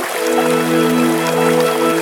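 Slow ambient music of long held synth-pad chords, the chord changing about a second in and again near the end, over a faint hiss.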